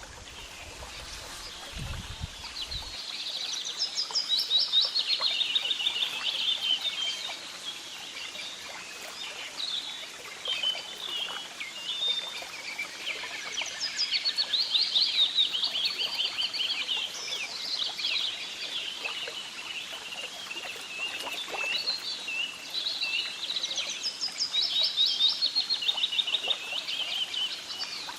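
Birds singing continuously, a dense run of rapid chirps and trills.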